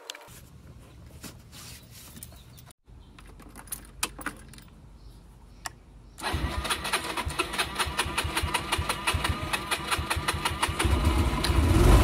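A few faint clicks, then about halfway through the Yamaha Vino 125 scooter's single-cylinder four-stroke engine starts on the electric starter and runs with a rapid, even firing beat, getting louder near the end. This is the first start on a freshly fitted spark plug.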